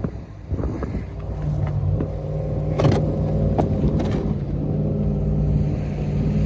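Pickup truck's engine running hard while being driven in donuts in the snow, settling into a steady held pitch about a second and a half in, with a few brief knocks.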